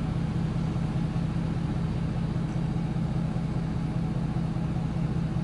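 A steady low hum of an idling engine, unbroken and without any sharp sounds.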